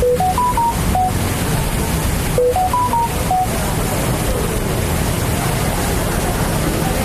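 A short five-note electronic notification chime, stepping up and then down, sounds twice about two and a half seconds apart over steady street traffic rumble.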